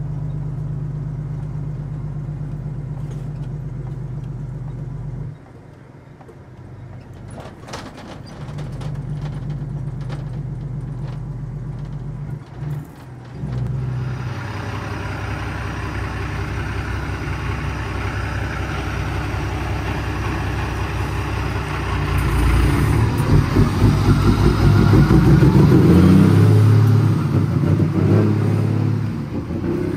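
Cummins ISX diesel engine of an International ProStar truck running steadily, then dipping sharply about five seconds in and briefly again around thirteen seconds. After that it pulls louder and fuller, loudest near the end.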